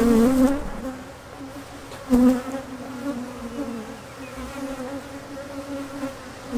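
Russian honeybees buzzing close around the microphone, their wingbeat hum wavering in pitch as single bees fly past; one passes especially close about two seconds in. The bees are agitated and defensive after being shut in a nuc box.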